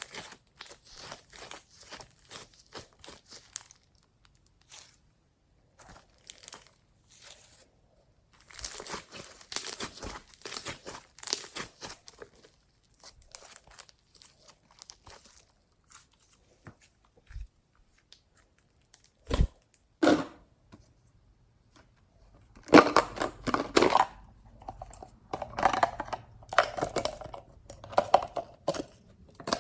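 Glossy slime being stretched, pressed and folded by hand, giving irregular crackling and popping clicks. It pauses briefly a few times, and the handling grows louder and denser near the end.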